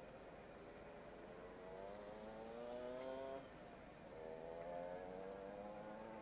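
Light propeller aircraft's piston engine droning faintly as it approaches, its pitch rising slowly. The note breaks off about three and a half seconds in and comes back a little lower half a second later.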